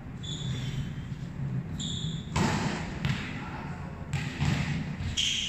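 A volleyball being hit and bouncing on a hard court floor, echoing in a large hall: a few sudden thuds, the loudest about two and a half seconds in and more around four seconds in, with a few short high squeaks between.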